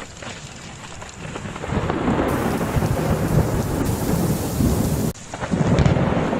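Stormy weather noise: a steady rushing hiss with deep rumbling swells that builds after a second or two, cuts off abruptly about five seconds in, and comes straight back.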